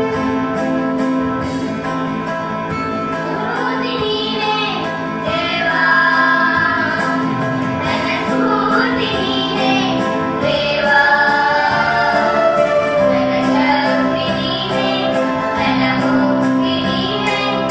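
A group of children sing together into one microphone, backed by instruments with a steady beat. The instruments play alone for the first few seconds, then the voices come in.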